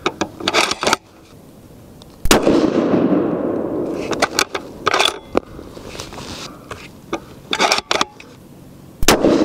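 Two shots from a Remington 700 bolt-action rifle in .30-06, about seven seconds apart, each followed by a long echo. Between the shots the bolt is worked with a quick run of sharp metallic clicks as a spent case is ejected and a new round chambered.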